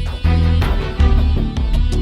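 Background music: an energetic soundtrack with heavy low notes, guitar and a steady beat.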